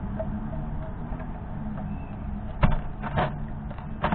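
Three sharp clicks in the second half as a male northern cardinal pecks at and cracks sunflower seeds on a plastic feeder tray, over a steady low background rumble.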